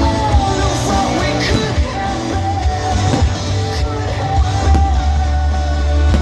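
Rock music with a sung melody line over guitar and a steady low bass.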